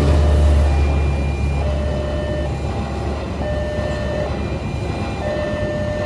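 Diesel-hauled express passenger train passing the level crossing: a low rumble that fades over the first two seconds as the head of the train goes by, then the run of the carriages. The crossing's electronic warning alarm repeats a pattern of alternating tones over it.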